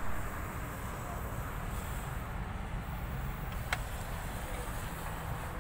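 Mercedes M273 V8 engine running at a steady idle, a low rough rumble, with a brief sharp high click a little past halfway.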